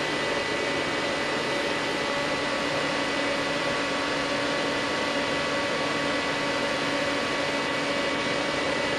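Steady whir of cooling fans from running bench test equipment, with several constant tones held through the noise.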